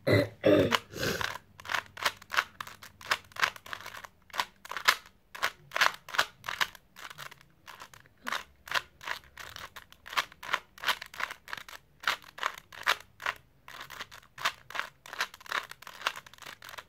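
Plastic 3x3 Rubik's Cube being turned by hand: a steady run of quick clicking, scraping layer turns, about two to three a second, with a heavier knock of handling in the first second.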